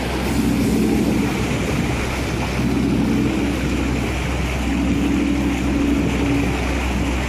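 Motor boat under way: its engine runs with a steady drone beneath the rush of churning water at the stern, with wind buffeting the microphone.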